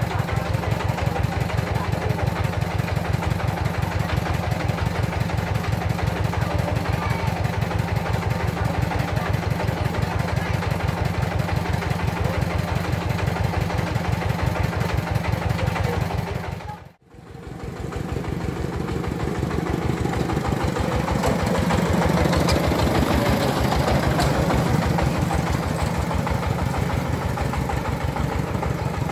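Diesel engine of a mobile rice mill running steadily with a fast, even beat. The sound breaks off for a moment about two-thirds through, then the engine runs again, somewhat louder for a few seconds, as the mill vehicle drives off.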